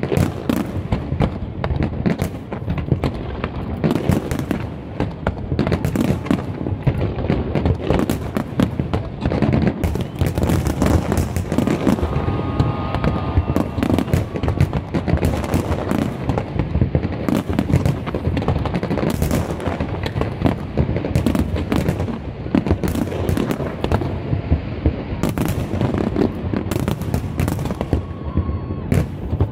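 An aerial fireworks display in full barrage: a dense, unbroken run of bangs and crackles, many shells bursting close together with no pause.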